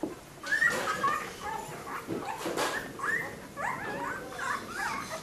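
Newborn Dalmatian puppies squeaking and whimpering as they nurse, a string of short, high, wavering cries.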